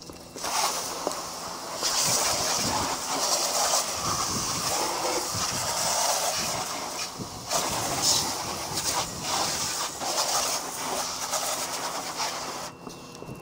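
Garden hose pistol-grip spray nozzle spraying water onto a car's body panels: a steady hiss of spray and splatter. It starts about half a second in, breaks off briefly a few times and stops near the end.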